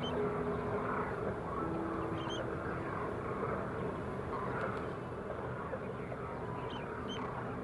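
Quiet background music with a few long held notes over a steady rushing noise, with a couple of faint high chirps.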